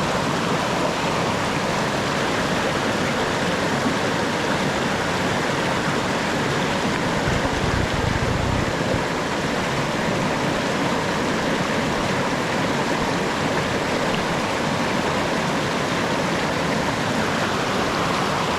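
Waterfall: water falling and rushing in a steady, even wash of noise, with a brief low rumble about eight seconds in.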